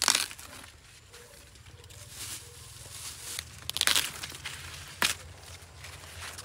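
Ears of waxy corn being snapped off their stalks by hand: a sharp crack at the start, a few more about four seconds in and one about five seconds in, with rustling of corn leaves and husks in between.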